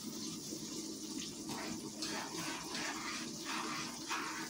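Chicken legs deep-frying in hot oil, a steady sizzle with irregular crackles.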